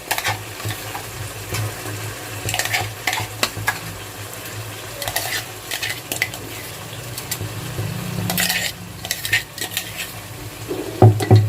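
A spatula stirring and scraping around a pan of sizzling spice paste as yogurt, fried onion and cashew paste are mixed into the frying masala, with irregular clinks and scrapes against the pan.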